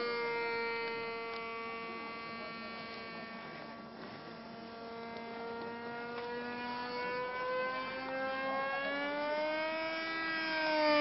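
Engine of a radio-controlled model plane droning in flight, a steady buzzing tone. Its pitch sags and fades a little in the first few seconds, then rises and grows louder near the end as the plane comes closer, dropping again as it passes.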